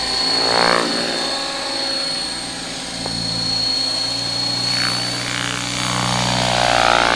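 A 450-size electric RC scale Cobra helicopter in flight, its rotor chop running under a steady high motor whine. The pitch sweeps as it passes close, once about half a second in and again near the end.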